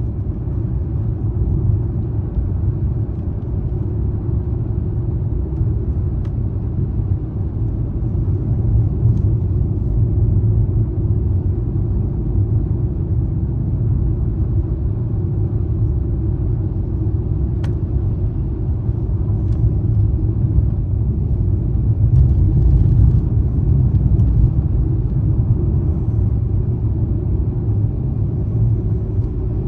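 A car on the move: a steady low rumble of engine and tyre noise.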